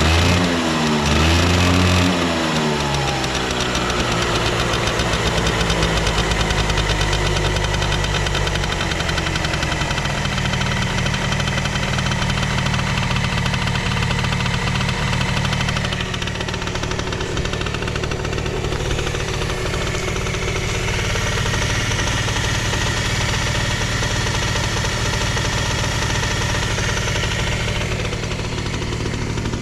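Suzuki Hi (CA19A) scooter's small two-stroke engine revved up and down a couple of times, then settling into a steady idle. It is running with no abnormal noise.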